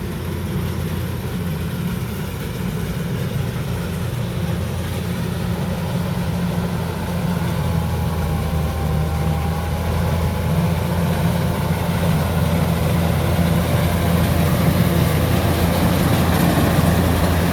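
Kubota DC-105X combine harvester's diesel engine running under load while cutting rice: a steady low hum that grows gradually louder.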